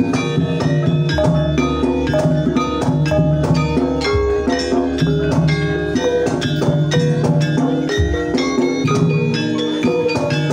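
Banyumasan gamelan ensemble playing a gending: mallet-struck keyed instruments ring out a quick, busy melody over kendang drum strokes and low sustained notes.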